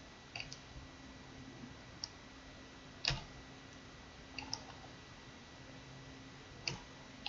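Computer keyboard keys pressed one at a time at an irregular, slow pace while a name is typed in. About eight separate keystrokes, the loudest about three seconds in.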